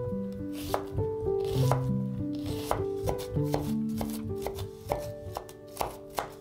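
A knife chopping food in irregular strokes, about two a second, over melodic background music.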